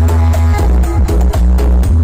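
Electronic dance music with very heavy bass, played loud through a truck-mounted carnival sound system's tall speaker stacks, with a steady beat.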